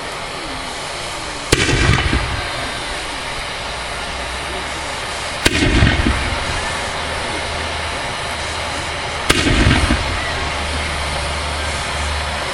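Aerial fireworks going off: three loud bangs about four seconds apart, each followed by a short rumbling echo.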